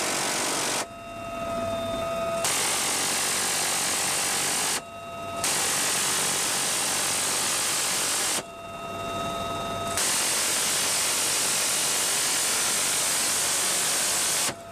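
A helicopter door-mounted minigun fires long, continuous buzzing bursts of a few seconds each, four in all. In the short gaps between bursts the helicopter's steady turbine whine can be heard.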